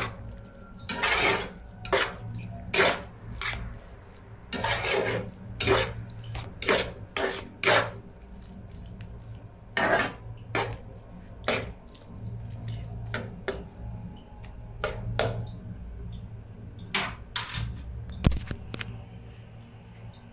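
Slotted spatula scraping and knocking against a nonstick frying pan while stirring bottle gourd and egg together, in irregular strokes about once or twice a second, some drawn out into short scrapes.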